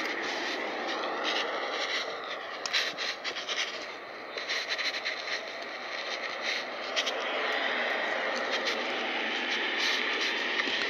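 Handling noise from a phone carried while walking: rubbing and scraping against clothing, with scattered clicks, over a steady rushing background.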